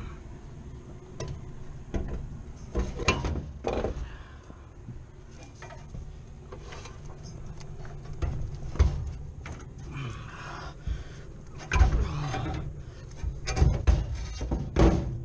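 Irregular metal clunks, knocks and some scraping as a heavy condenser fan motor is worked into its mount inside a rooftop unit, with a steady low rumble underneath.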